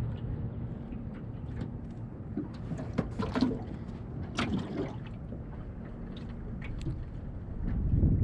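Water splashing and sloshing against a small aluminium boat, with scattered light knocks of gear in the hull over a steady low hum.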